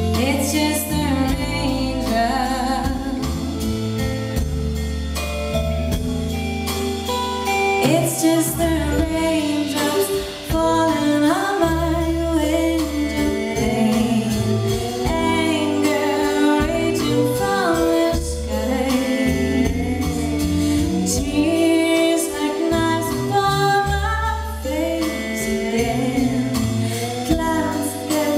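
A woman singing lead vocals live with a band of drum kit and guitars, heard from the audience with the sound of the hall around it.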